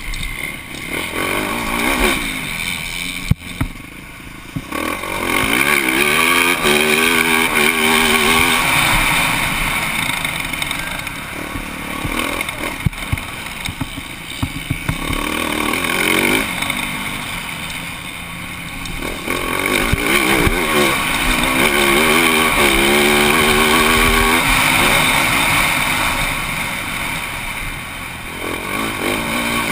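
Motocross bike engine heard from the rider's helmet, revving up hard and backing off through the corners. The throttle shuts off around three seconds in and again around seventeen seconds in, and each time it opens again with rising revs. There is a sharp knock about three seconds in.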